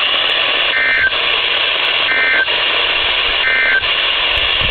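Three short bursts of SAME digital data tones from a NOAA Weather Radio receiver, the EAS end-of-message code that closes the weekly test, over steady radio static hiss.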